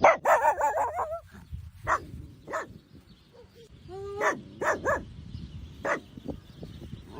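A dog vocalizing: a wavering, drawn-out call in the first second, then a string of short, separate barks and yips.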